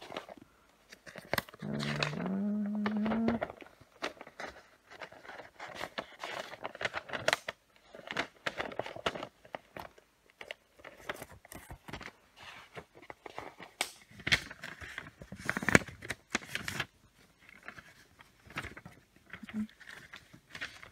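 Irregular rustling, clicking and small knocks of things being handled close to the microphone, with a short low humming tone that steps up in pitch about two seconds in.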